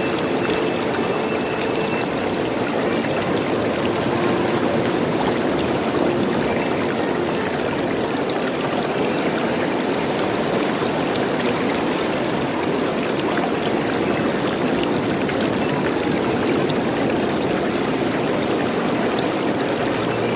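Running water gurgling and trickling steadily, like a small stream over stones, with an even rushing hiss and small bubbling notes.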